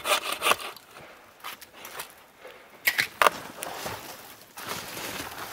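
Bow saw cutting a dead, dry tree trunk with quick, even strokes, about four a second, that stop half a second in. About three seconds in come a few sharp wooden cracks and knocks as the log is worked by hand.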